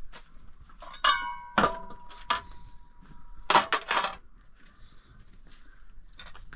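Metal pots and utensils clanking and knocking. One strike about a second in rings on for a couple of seconds, and a louder clatter follows around three and a half seconds in.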